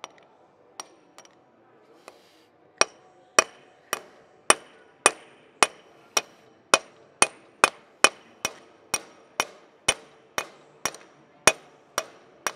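Hammer on a steel punch, driving the kingpin up out of the Sunbeam 1000hp's front stub axle: a few light taps, then from about three seconds in a steady run of sharp, ringing metal blows, about two a second.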